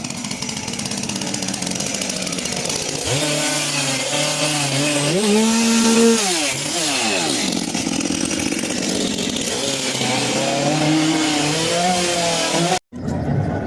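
Chainsaw engine revving: it climbs in pitch about three seconds in, holds high, drops back near seven seconds, then revs up again. There is a brief break near the end.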